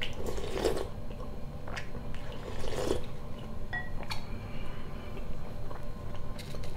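Slurping borscht off a wooden spoon, twice, about two seconds apart, followed by chewing and small wet mouth clicks.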